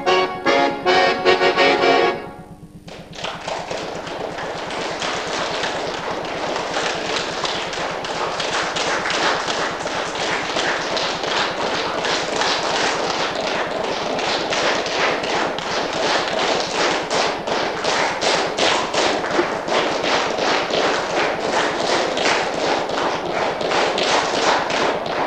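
Accordion music ends about two seconds in, followed by steady audience applause.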